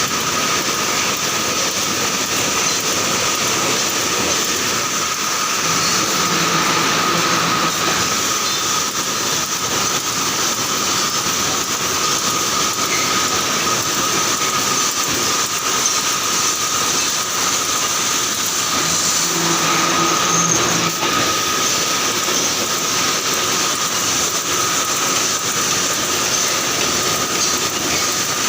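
Fence wire mesh welding machine running at speed: a dense, fast mechanical clatter over a steady high whine, with a low hum coming in twice for about two seconds.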